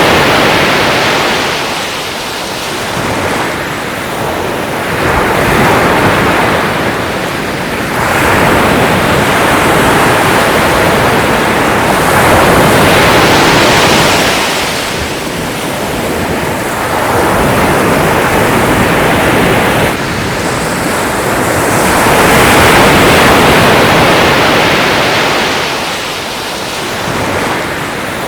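Sea waves breaking and washing up a shore, a continuous rushing surf that swells and eases every four to five seconds.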